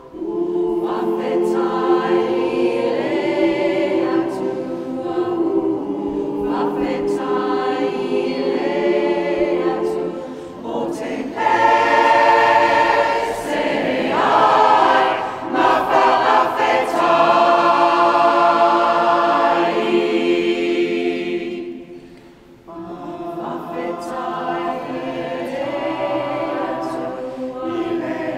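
Mixed choir of men's and women's voices singing together in a cathedral. The singing grows louder through the middle, breaks off briefly about three-quarters of the way through, then goes on more softly.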